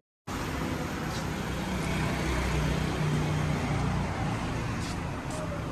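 Car running, with a steady engine hum and road noise.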